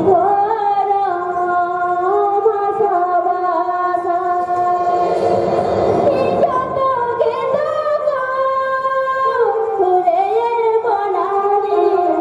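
A woman singing a slow melody, holding each note and stepping up and down in pitch, with a wavering ornament on some notes.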